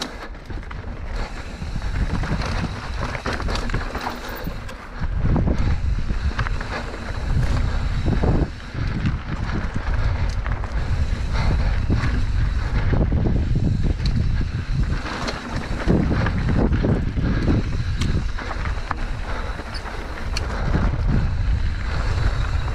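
Wind buffeting the GoPro's microphone while a mountain bike rolls over rough dirt and rock, with tyre noise and many small clicks and rattles. The low rumble gets heavier about five seconds in.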